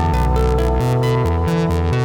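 Eurorack modular synthesizer patch playing a sequenced electronic line: Qu-Bit Surface and Nano Modules ONA oscillators run through the Behringer Filtamp 1006 filter and amplifier module. A bass part steps to a new note every quarter to half second under held tones, with quick rhythmic pulses in the highs.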